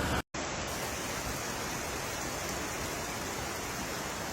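Steady rushing water, an even hiss with no pitch, cutting out for a moment just after the start and then running on.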